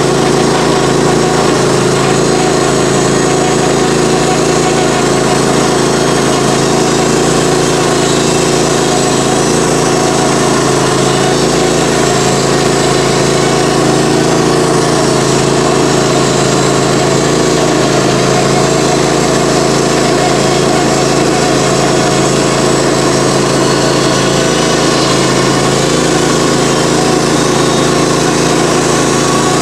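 Norwood HD38 portable bandsaw mill's gas engine running steadily at constant speed.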